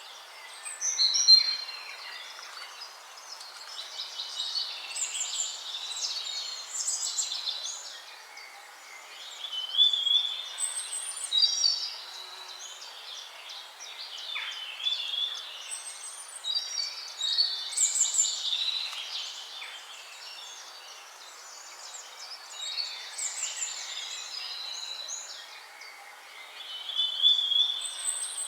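Songbirds singing, with short chirping and trilled phrases coming every few seconds over a steady background hiss.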